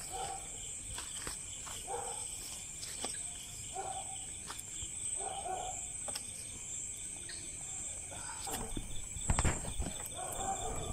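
Steady night-time chorus of crickets and other insects, several unbroken high-pitched trills, under the soft flapping of a plastic hand fan being waved over glowing charcoal to liven the embers. A couple of dull thumps come near the end.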